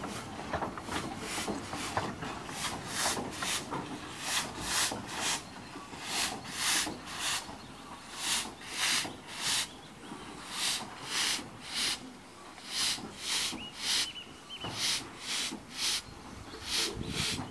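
Narrow-gauge Hunslet 0-4-2T steam locomotive moving slowly, its cylinders giving a rhythmic hissing chuff about two beats a second, the beats coming in uneven groups of two or three with short gaps.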